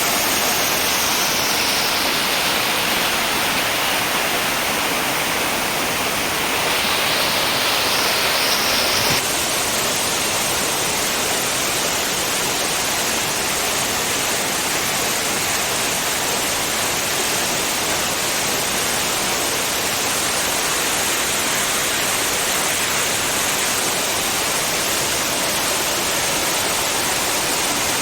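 Waterfall rushing, a loud, steady wash of falling water with no pauses. About nine seconds in the sound changes abruptly and slightly, as if one recording gives way to another.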